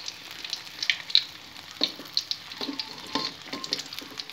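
Hot oil crackling and popping around battered fried chicken (ayam kremes) in a wok, with a spatula scraping and knocking against the wok a few times as a piece is lifted out.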